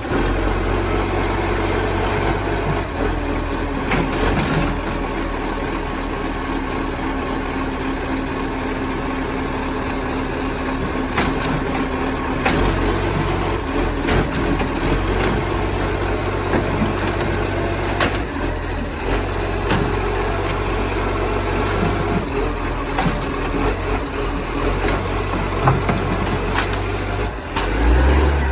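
Garbage truck's diesel engine idling loudly through a massive exhaust leak, with a deep steady rumble. A few sharp knocks land over it, and the engine gets louder near the end.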